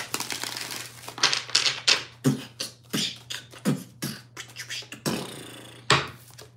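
A tarot deck is shuffled by hand: a short riffle at the start, then an uneven run of soft slaps and swishes as the cards are split and dropped from hand to hand.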